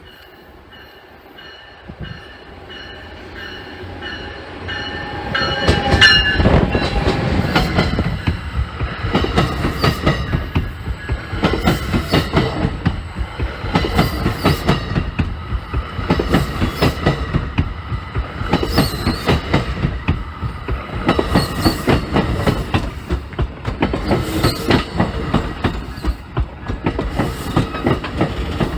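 Commuter train approaching and passing, growing louder over the first six seconds. Its wheels then clatter in a rapid, steady rhythm over the rail joints.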